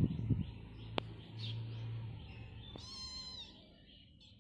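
A young kitten gives one short, high-pitched mew about three seconds in, over faint bird chirps, after a low rumble and a sharp click in the first second.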